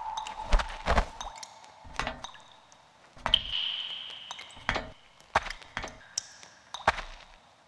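Sparse, irregular knocks and clinks, a few of them followed by a short ringing tone that fades away.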